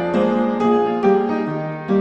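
Background piano music with notes struck about twice a second.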